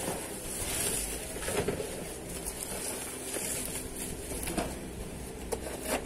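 Cardboard packaging being handled and rustling, with scattered light clicks and scrapes.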